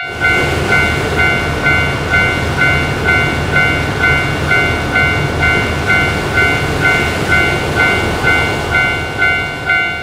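Japanese level-crossing warning bell ringing its steady 'kan-kan' at about two strokes a second, over the loud, continuous noise of a train running past.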